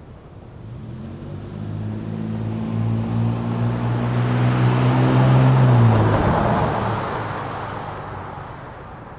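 Ford F-150 with a 4.2-litre V6 and a single-in, dual-out Magnaflow exhaust driving past at steady, modest revs. The engine note grows louder, is loudest as the truck passes about six seconds in, then drops away into fading tyre and road noise.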